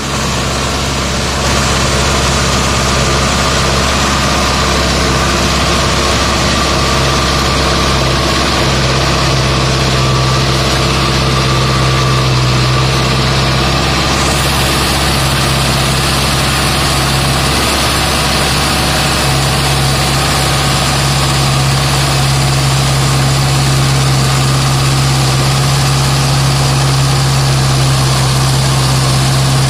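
Mahindra Arjun Novo 655 DI tractor's four-cylinder diesel engine running steadily with a deep hum, driving a PTO-powered rotavator as it works soil at creeper speed.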